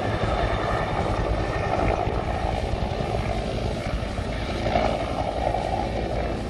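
Helicopter with a two-bladed main rotor flying past in a display, its rotor and engine giving a steady, fairly loud drone.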